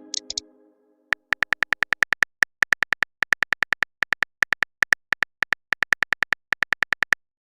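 Rapid phone-keyboard key-tap clicks, about six or seven a second for some six seconds, as a text message is typed out. The fading tail of a chime comes before them.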